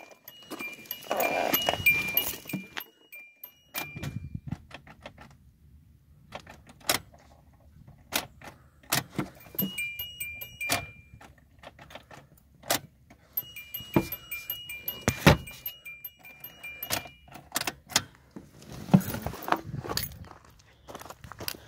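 A car's electronic warning chime pinging in three runs of quick repeated beeps, as sounded with the driver's door open. Between the runs come scattered clicks, knocks and key jingles from the door and interior being handled.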